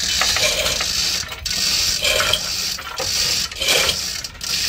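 Rhythmic rasping, rattling mechanical strokes, about one every second and a half, each lasting about a second, from hand work on metal parts.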